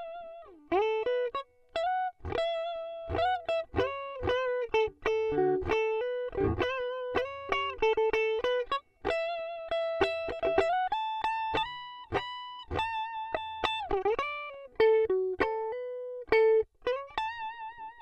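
Swing C1 Plus Les Paul-style electric guitar played on a clean tone with both humbucking pickups selected together. It plays a single-note melodic lead with slides into notes and vibrato on the held notes.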